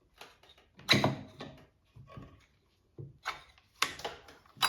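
Handling noise: a string of irregular clicks and knocks as parts and tools are moved about, the loudest about a second in and a quick cluster near the end.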